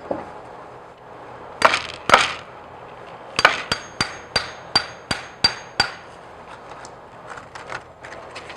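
Small hammer striking a metal punch to knock apart the cam of a Harken 150 Cam-Matic cam cleat: two blows, then a quick even run of about seven ringing taps, about three a second. A few faint clicks follow near the end.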